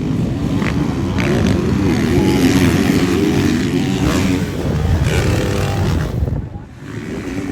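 Motocross motorcycle engines running hard, with a brief drop in level about six and a half seconds in.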